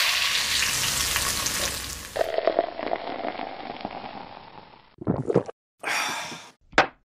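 Hot oil poured over minced garlic and scallion sizzling loudly. It changes abruptly about two seconds in to a quieter crackle that fades away, and a few short separate noises follow near the end.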